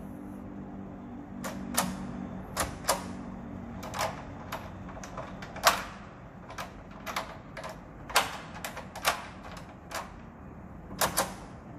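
Mortice sashlock on a door clicking as its lever handle and newly fitted thumbturn Euro cylinder are worked to test the lock: about twenty sharp metal clicks at irregular intervals.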